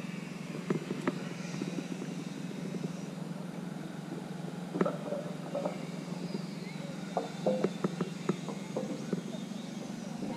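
A steady low mechanical hum, with scattered light clicks and taps, most of them in the second half.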